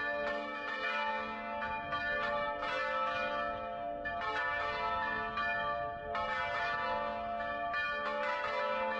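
Church bells ringing, several bells struck in turn with their tones overlapping and ringing on.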